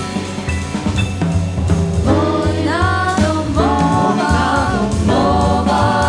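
Jazz vocal quartet singing in close harmony over piano, double bass and drums. The voices come in about two seconds in, after a short instrumental passage.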